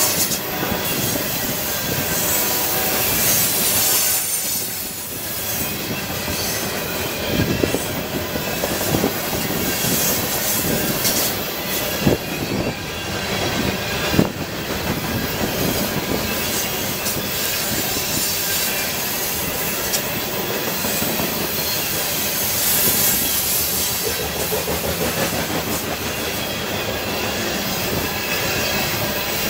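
Freight train of covered hopper cars rolling past, its steel wheels clattering steadily over the rail joints, with two sharper clanks about 12 and 14 seconds in.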